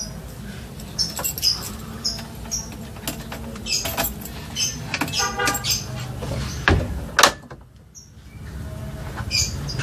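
Air-cooled 1600 cc VW flat-four engine idling steadily while warming up, with birds chirping over it and a few sharp clicks. The engine sound dips away briefly near the end, then comes back.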